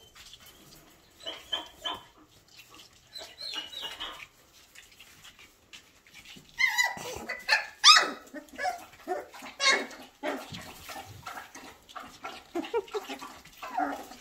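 19-day-old Goldador puppies yipping and squealing in many short, high-pitched cries as they play. The cries come sparsely at first and crowd together from about halfway through.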